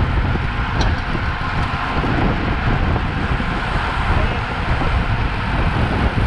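Steady wind noise buffeting the microphone of a camera on a racing bicycle moving at speed on a paved road, with a short click about a second in.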